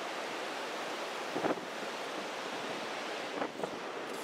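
Steady wash of ocean surf on a beach, with wind on the microphone. Two faint brief sounds come through, about a second and a half in and again near the end.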